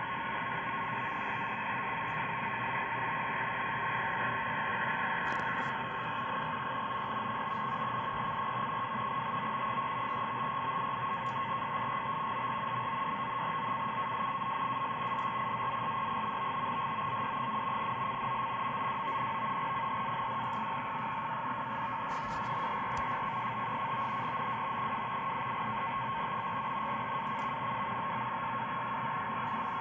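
NAVTEX marine data broadcast on 490 kHz heard through a radio receiver's audio: a steady frequency-shift data tone near 1 kHz over constant radio static hiss.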